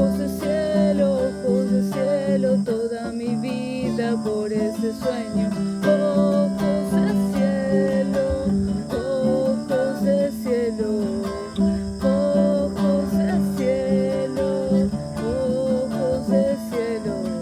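Acoustic guitar played in steady chords while a woman's voice carries a wavering melody over it. Crickets or other insects chirp steadily and faintly in the background.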